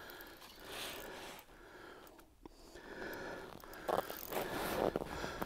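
Faint breathing and sniffing with jacket rustle close to the microphone, in uneven soft swells that are strongest near the end.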